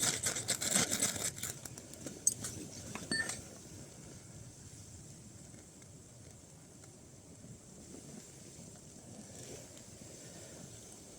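A ferrocerium rod scraped hard and fast with a Leatherman Surge multitool to throw sparks onto damp tinder: a quick run of rasping strikes over the first second and a half, then a couple of light clicks and faint outdoor background.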